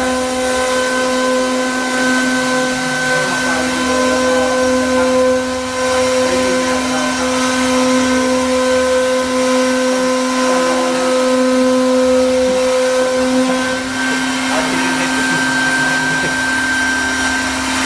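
Air-cooled 3 kW CNC router spindle running at speed: a loud, steady whine with overtones over the hiss of its cooling fan.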